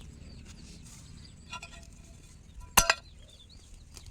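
A sharp metallic clink with a brief ring about three seconds in, after a fainter ringing tap a little earlier, over faint chirping of birds.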